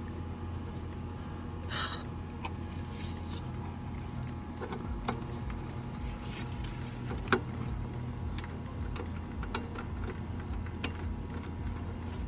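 Small scattered metallic clicks and taps from a brake line fitting and bolt being handled and fitted onto a brake caliper, over a steady low hum. The sharpest click comes about seven seconds in.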